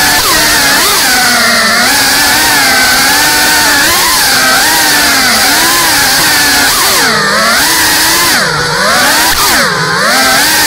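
GEPRC Cinelog 35 cinewhoop FPV drone's brushless motors and ducted propellers whining, the pitch rising and falling with the throttle. Three quick drops and recoveries in pitch in the last few seconds, the throttle cut and punched back as it flips and rolls.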